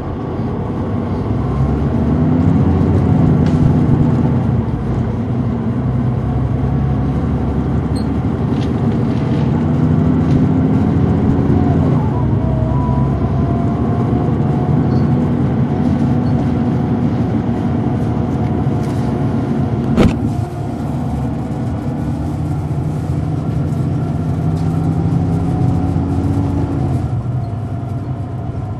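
Caterpillar C9 diesel engine and ZF automatic transmission of a 2004 Neoplan AN459 articulated transit bus, heard from on board while it drives, the engine pitch rising and falling as the bus speeds up and slows. A single sharp knock sounds about two-thirds of the way through.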